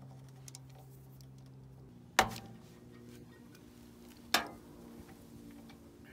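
Hand ratchet on a 17mm socket and extension loosening a scooter's oil drain bolt: light ratchet clicking with two sharp metallic clacks about two seconds apart. A faint steady hum runs underneath.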